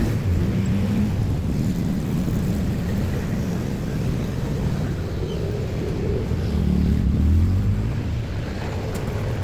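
Low, steady vehicle rumble at a railway level crossing, with wind noise on the microphone; it swells briefly about seven seconds in.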